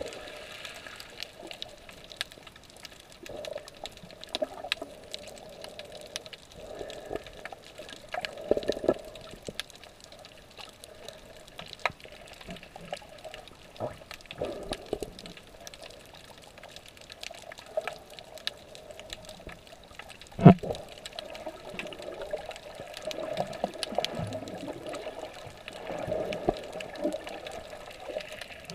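Underwater sound at a snorkeler's camera: water sloshing and gurgling around it, swelling every few seconds, with faint scattered clicks. A single sharp knock comes about twenty seconds in.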